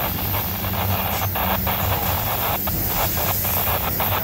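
Freight train cars rolling past on the rails: a steady rumble with irregular sharp clicks from the steel wheels on the track.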